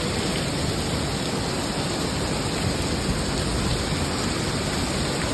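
Heavy storm rain pouring down, a steady loud rushing hiss.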